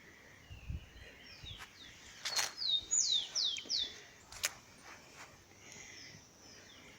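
A bird singing a short phrase of about six quick notes, each sliding down in pitch, with a few sharp clicks around it.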